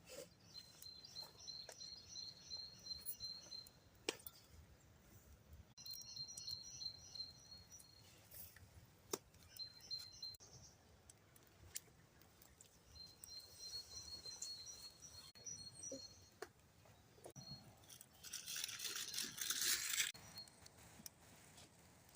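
A small songbird singing rapid high trills at one steady pitch, in four separate phrases of one to three seconds each. A few faint clicks, and near the end a hiss of rustling noise about two seconds long.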